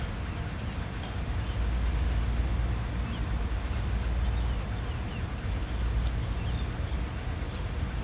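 Wind buffeting the microphone: a steady, uneven low rumble, with a few faint short high chirps around the middle.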